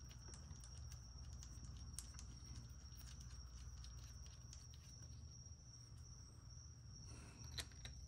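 Near silence with a faint steady high tone, broken by a few light scattered clicks of hands and tools on the engine as a camshaft position sensor's bolt is put back and snugged down.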